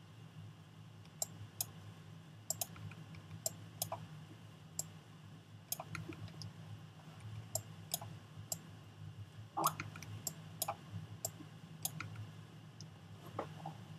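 Irregular sharp clicks of a computer mouse and keyboard, some in quick pairs, over a steady low hum.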